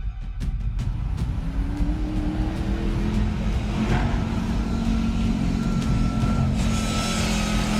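V8 engine sound effect: the engine revs up, its pitch climbing over the first few seconds, then runs steadily, with a hiss building near the end.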